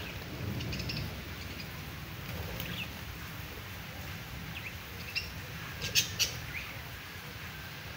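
Budgerigars chirping in scattered short high calls, with two sharp, louder chirps about six seconds in, over a low steady rumble.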